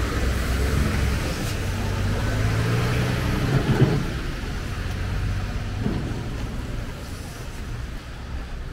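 Road traffic on a city street: the low rumble of passing cars, slowly fading, with a short sharper noise about halfway through.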